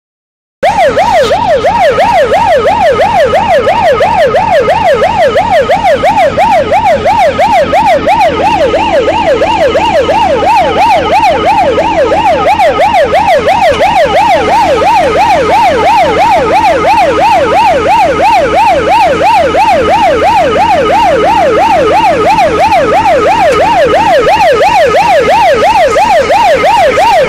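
Fire engine's electronic siren on a fast yelp, sweeping up and down about three times a second at a constant, loud level.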